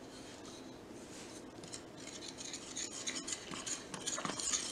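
Danish dough whisk stirring flour and water in a glass bowl: quiet, scratchy rubbing strokes through the flour, starting about halfway in and growing louder.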